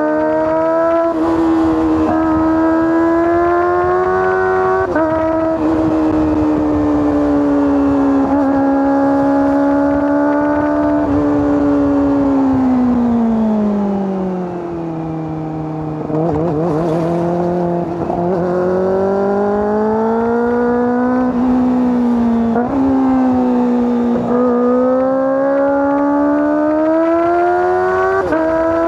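Kawasaki ZX-25R SE's 249 cc inline-four engine and exhaust at high revs on the move, its pitch climbing in each gear and dropping sharply at every upshift. About halfway through the revs fall away and the sound softens as the throttle is eased, then the engine pulls up through the gears again.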